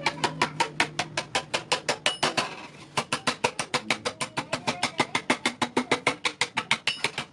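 Hand hammer striking iron on an anvil in fast, even blows, about six a second, with a light metallic ring, pausing briefly a little before three seconds in.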